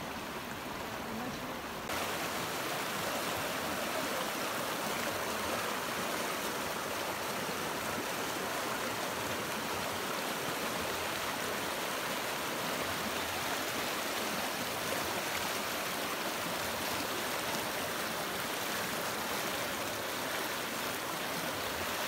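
Shallow mountain stream rushing over rocks and gravel in a steady, even rush of water, louder from about two seconds in.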